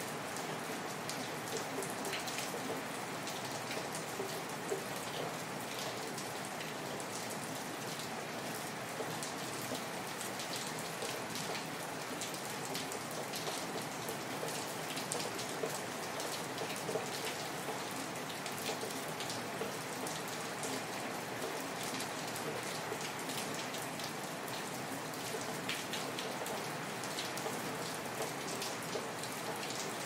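Steady rain: a dense, even hiss with many individual drops ticking close by at irregular moments.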